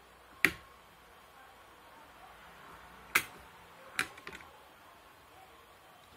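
Sharp metallic clicks from an LGA1155 CPU socket's retention lever and load plate as the processor is removed. There is one loud click about half a second in, another about three seconds in, and one about four seconds in followed by a few small clicks.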